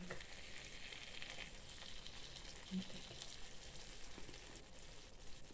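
Faint, steady sizzling from chicken in sauce under melted mozzarella in a frying pan, still hot just after the heat has been turned off, as a fork prods the food, with one soft knock about three seconds in.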